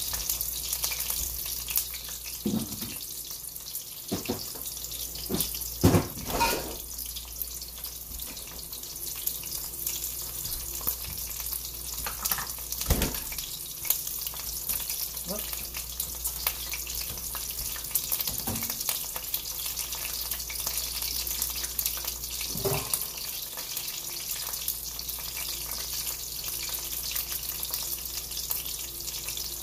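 Cornstarch-dusted beef chunks sizzling steadily in olive oil in a cast-iron skillet. A few scattered knocks and clatters break through the hiss.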